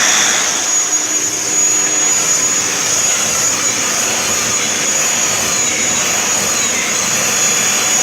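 Kirby Sentria upright vacuum running steadily with a constant high whine, drawing air through a Dyson attachment tool fitted to its hose.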